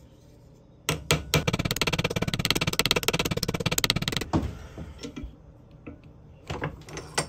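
Small ball-peen hammer peening the head of a pocket knife's blade pin flat, the knife resting on a steel vise. Two strikes come about a second in, then a fast, even run of light taps for about three seconds, then a few scattered taps near the end.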